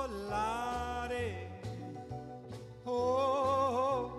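Background music, the opening of an orchestral pop song. Sustained melody notes with vibrato sound over a bass line that steps to a new note about every half second, with a steady beat.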